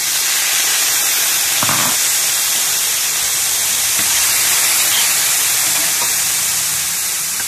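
Soy sauce poured into a hot wok of sautéed onion, garlic and ginger, sizzling loudly and steadily as it flash-boils into steam. The sizzle starts suddenly, with a brief knock about two seconds in.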